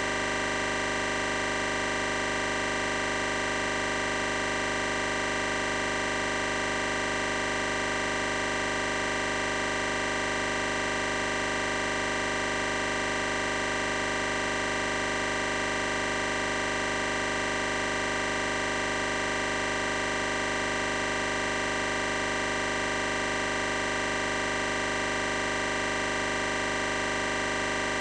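A steady held musical drone: a chord of several sustained tones that does not change.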